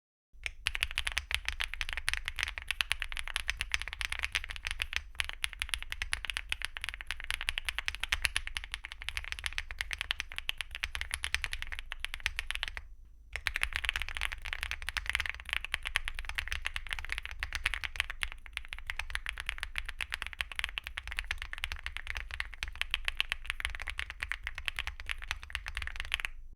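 Continuous typing on a Weikav Lucky65 mechanical keyboard with stock HMX x Akko linear switches and double-shot PBT Cherry-profile keycaps: a dense run of clacky keystrokes, with a short break about halfway through.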